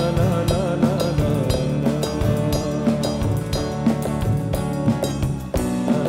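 Live band playing with drum kit and bass keeping a steady beat under sustained instrument tones. The music drops briefly near the end, then the vocal comes back in.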